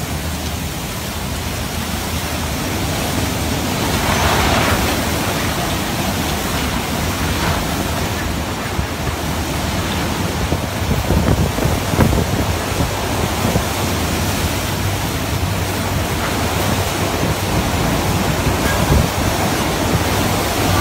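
Steady, loud rush of driving rain and strong wind ahead of an EF3 tornado, with a brief louder swell about four seconds in.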